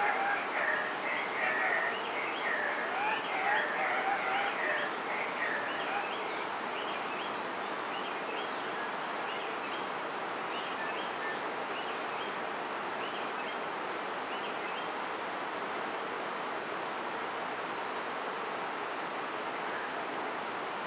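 Andean cock-of-the-rock giving loud, harsh squawking courtship calls at its display lek, repeated irregularly for about the first six seconds. After that there is a steady forest hiss with faint chirps of small birds.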